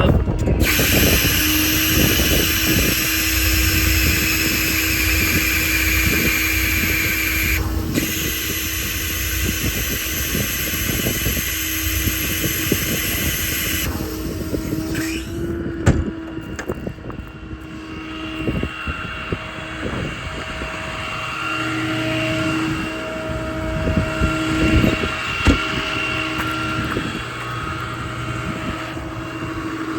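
Service truck's machinery running with a steady whine, under a loud hiss that runs from about a second in to about halfway, breaks off briefly once, then stops, leaving the running whine.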